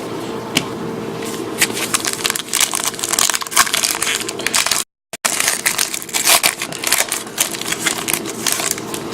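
Crackling and crinkling of a foil trading-card pack wrapper being opened, with the cards handled, in many irregular crackles. The sound cuts out completely for a moment about five seconds in.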